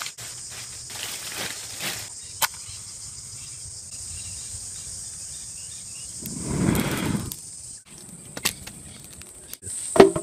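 A person blowing hard on smouldering campfire embers to coax them into flame: one long breathy gust about six seconds in. A steady, high insect chorus, crickets or cicadas, trills throughout.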